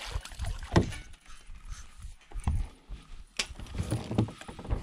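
A freshly landed bass flopping on a bass boat's carpeted deck: a run of irregular knocks and thumps.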